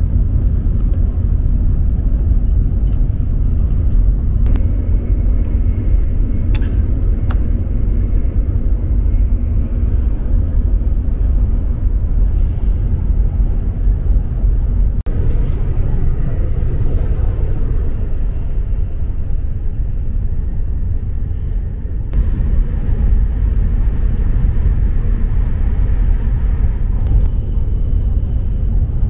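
Steady low rumble of a Hokuriku Shinkansen E7/W7-series bullet train running at speed, heard from inside the passenger cabin, with a few faint clicks.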